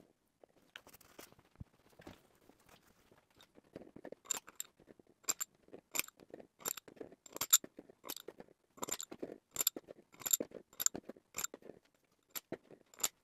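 Steel head bolts and washers clinking against an aluminium cylinder head as they are dropped one by one into their bolt holes: about a dozen sharp metallic clinks from about four seconds in, with faint handling rustle between them.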